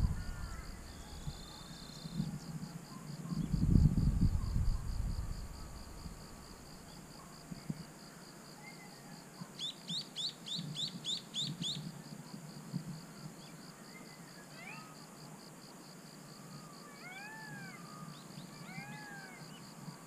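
Birds calling over a steady, evenly pulsing insect drone: a quick run of about eight high chirps about ten seconds in, and a few arched whistled calls near the end. A gust of wind rumbles on the microphone about four seconds in.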